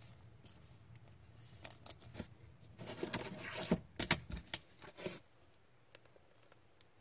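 Hockey trading cards being handled and flipped through by hand: papery rustling and light clicks and slaps of card stock. It is loudest in the middle and dies away about five seconds in.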